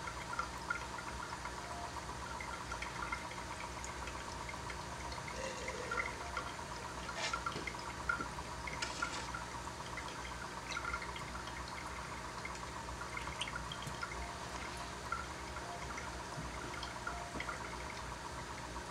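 Aquarium airline bubbling in a small tank: a steady stream of air bubbles rising and popping at the water surface, heard as continuous light bubbling with scattered small pops, over a steady low hum.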